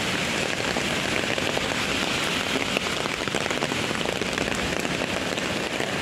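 Heavy rain falling steadily, a constant hiss of downpour on an umbrella held overhead and on the wet pavement.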